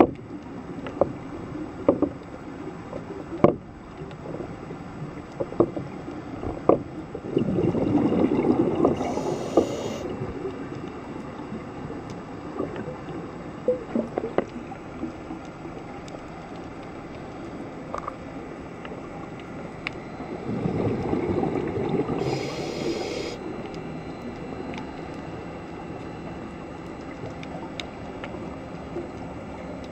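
Scuba diver's regulator breathing underwater: a long burst of exhaled bubbles about seven seconds in and again about twenty seconds in, each ending with a brief high hiss. Scattered sharp clicks run over a steady underwater hiss.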